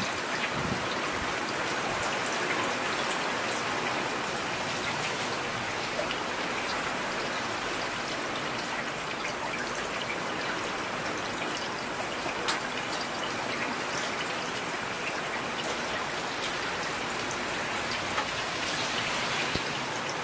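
Steady rain falling, an even hiss with scattered louder drop ticks, the sharpest about twelve seconds in.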